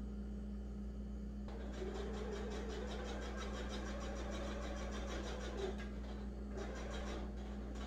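Electric sewing machine stitching in a fast, even run that starts about a second and a half in, stops briefly, then runs again near the end.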